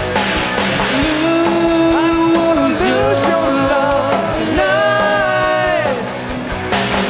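Live rock band playing: electric guitars and drums with a lead vocal, long held notes sliding between pitches over steady drum and cymbal hits.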